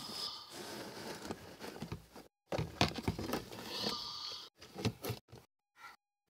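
Close rubbing and rustling against a phone's microphone with several knocks: handling noise as the phone is moved with its lens covered. The sound cuts out abruptly near the end.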